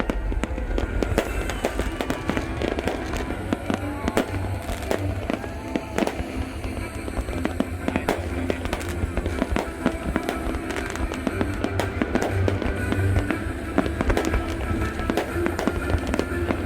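New Year fireworks going off repeatedly, a dense run of bangs and crackles, over loud music with a heavy bass beat.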